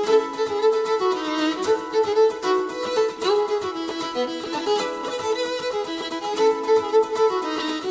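Instrumental music led by a fiddle, playing a quick tune of short notes over a steady accompaniment.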